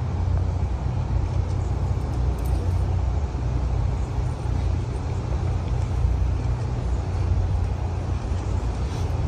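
A vehicle engine running steadily, giving a low, even rumble.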